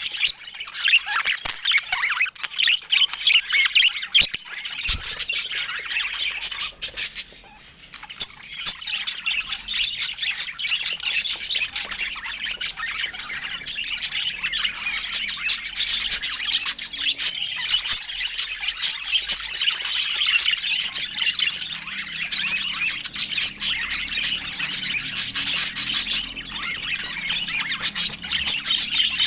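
Budgerigars chattering and squawking: a dense, continuous stream of quick chirps and harsh calls, with a brief lull about seven seconds in.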